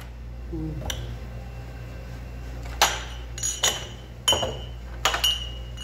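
Small glass tea cups clinking as they are picked up and set down on a metal tray: a faint clink about a second in, then a run of sharp clinks, each with a brief ring, from about three seconds in. A low steady hum runs underneath.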